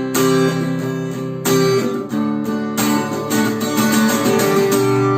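Acoustic guitar strummed in a steady rhythm through the G, E minor, C and D chord progression, changing chord every second or so. One stroke in each group is struck harder than the rest.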